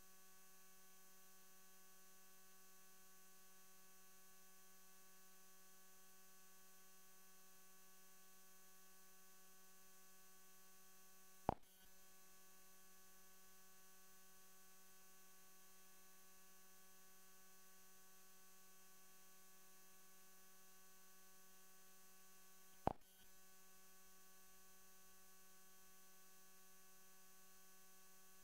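Near silence with a faint, steady electrical hum made of several even tones, broken by two sharp clicks, one about a third of the way in and one about three-quarters of the way in.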